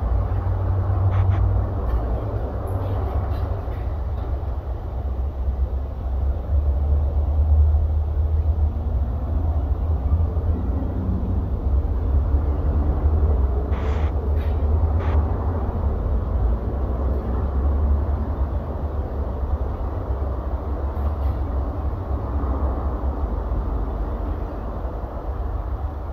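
Steady low workshop rumble with a noisy hiss above it, broken by a few sharp clicks and knocks about a second in and again around fourteen seconds in.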